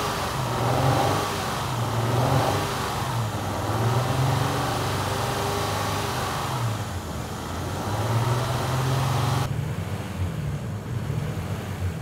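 Honda V6 engine running with an uneven, wavering note from a misfire: the suspect spark plug and ignition coil, swapped from cylinder 3 to cylinder 5, leave that cylinder not firing. The sound turns duller about nine and a half seconds in.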